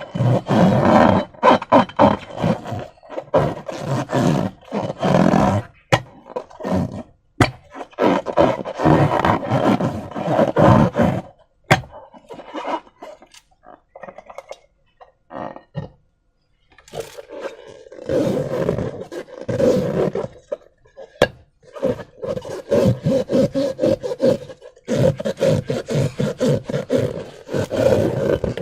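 Rubber balloons and slime being squeezed and worked, giving repeated rubbery groaning and squelching bursts with short gaps and a few sharp clicks. It goes mostly quiet for a few seconds around the middle, then comes back with a steadier humming tone.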